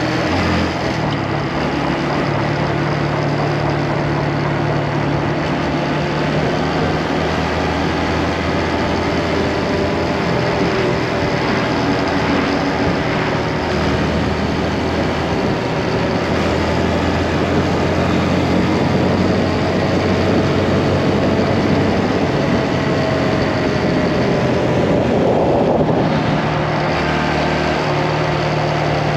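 Motorcycle engine running while riding, with a steady rush of wind noise. The engine pitch slowly rises through the second half, then drops about 26 seconds in.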